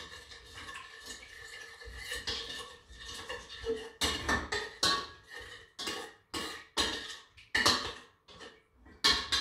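Metal spoon and stainless steel pot scraping and clanking while melting chocolate and butter are stirred in a pot set over another pot on the stove. A faint steady hum at first, then from about four seconds in, quick sharp strokes about twice a second.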